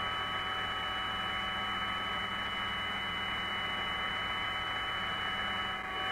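Steady hiss and hum with a few thin, unchanging tones: the background noise of the Apollo 10 spacecraft's onboard cabin voice recording.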